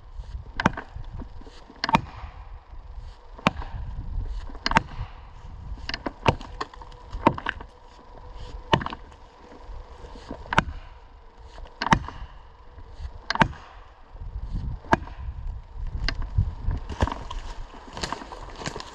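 Felling wedges in a tree's back cut being hammered home with sharp, evenly paced blows, about one every second and a half, to tip a leaning tree. Near the end a rising crackling rustle sets in.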